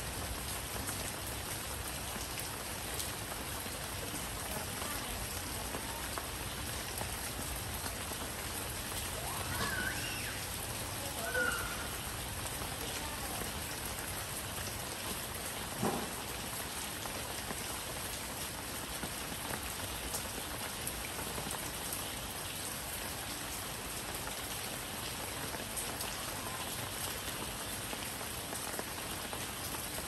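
Steady rain falling, an even hiss with a single louder drop or tap about halfway through.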